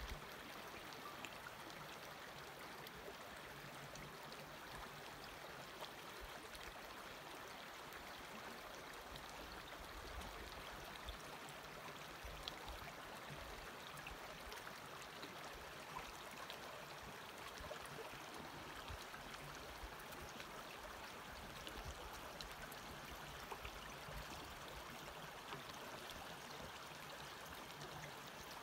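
Creek water flowing, a faint, steady rush.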